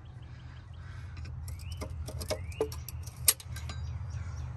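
Scattered clicks and light knocks from hands working the distributor cap and plug wires on an old inline-six engine, with a sharper click about three seconds in. Two short rising chirps sound about two seconds in, over a steady low hum.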